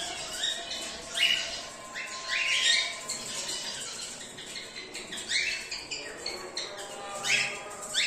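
Cockatiels calling: a flock giving short, harsh, rising squawks, one after another about every second or so.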